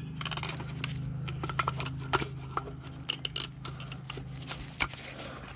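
Irregular clicks and small knocks of an engine component being handled and tugged by hand as it is worked to be disconnected, over a steady low hum.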